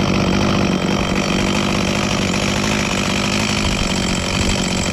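Echo CS-440 two-stroke chainsaw idling steadily, its carburetor freshly cleaned. The engine note holds even throughout, with no surging or dying.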